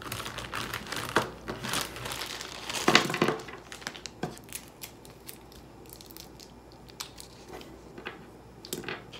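A candy wrapper crinkling and tearing as it is pulled open, busiest and loudest in the first three seconds, then only a few soft scattered crackles.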